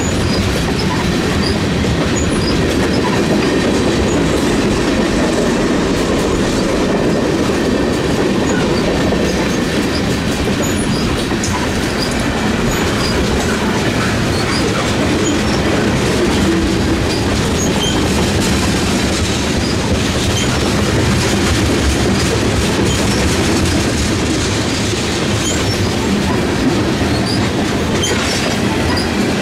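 Freight train cars rolling past close by: a steady, loud rumble and rattle of wheels on the rails, with no horn.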